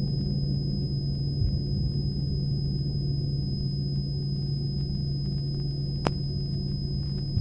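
Steady low soundtrack drone, a sustained rumble with a thin high whine held above it. A single sharp click comes about six seconds in.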